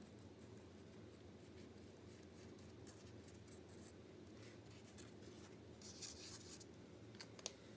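Sharpie marker tip scratching across paper in short, faint strokes, starting about three seconds in, with a couple of small clicks near the end over a low steady background hum.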